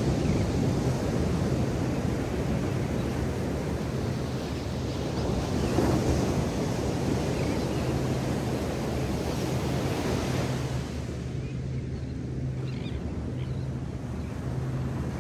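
Surf breaking on a sandy beach, with wind on the microphone. It swells to its loudest about six seconds in and eases a little in the last few seconds.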